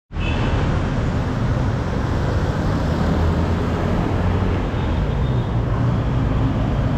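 Steady city road traffic from cars, vans and motorcycles driving through a busy intersection, a continuous low rumble of engines and tyres.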